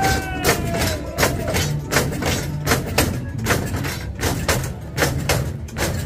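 Music track with a steady percussive beat, and a sung vocal line sliding in pitch in the first second.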